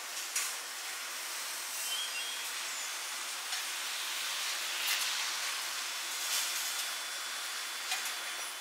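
Steady hiss of outdoor ambient noise with a few faint sharp ticks.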